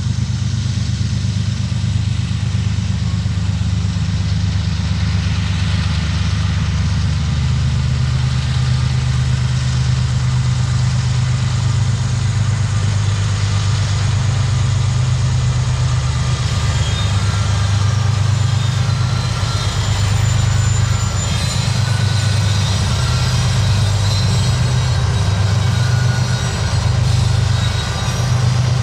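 Several CSX diesel freight locomotives running as they roll slowly past, a steady low engine rumble that pulses gently.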